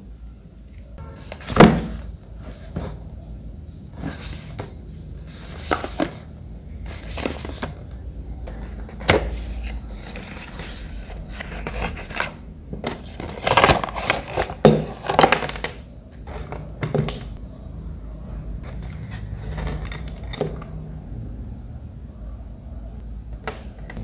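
Hands handling small plastic fan parts and a cardboard box: scattered clicks, taps and rustles over a low steady hum. The sharpest knock comes about a second and a half in, and there is a busier stretch of rustling around the middle.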